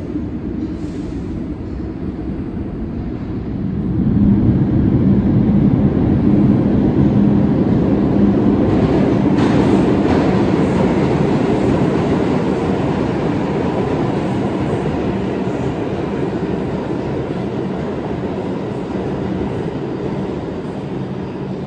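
New York City subway express train of R142-type cars running through the station on the express track without stopping. The train noise swells about four seconds in, with a steady low hum for a few seconds, and slowly fades toward the end.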